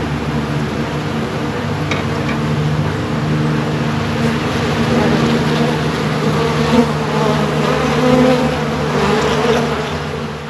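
A crowd of honeybees buzzing loudly around honey frames they are robbing out: a steady hum of many wings at several pitches, easing slightly near the end.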